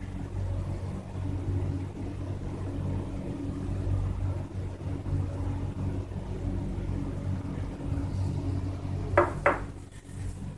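Handling of an HP Officejet inkjet printer and its ink cartridge: two sharp clicks close together near the end, over a steady low hum.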